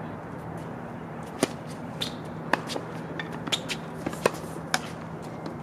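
Tennis balls being hit and bouncing on an outdoor hard court: a run of about eight sharp knocks spread over three and a half seconds, starting about a second and a half in, over a steady low hum.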